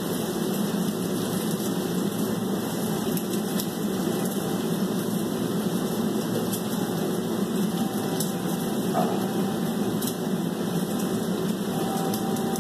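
A steady low whirring hum, like a fan or motor running, with a few faint clicks.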